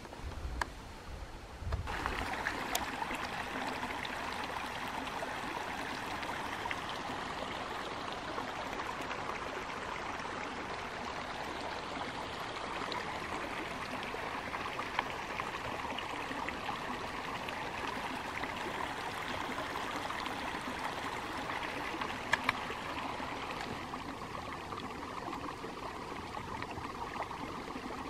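Flowing water running steadily, starting about two seconds in, with a few faint ticks over it.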